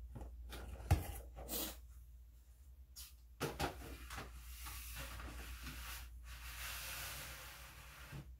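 Dishes and plastic containers being handled and set down. There are several knocks and clatters, the sharpest about a second in, followed by a steady hiss lasting a few seconds.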